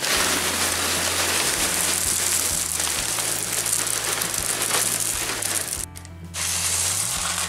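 Expanded clay pebbles pouring from a plastic bag into a plastic seed tray: a continuous rattling rush with the bag crinkling. It breaks off briefly about six seconds in, then comes back as the pebbles are pushed about by hand.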